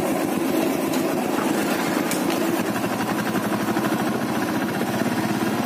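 Royal Enfield Thunderbird 350X's single-cylinder engine running under way, heard from the saddle as a steady, even beat.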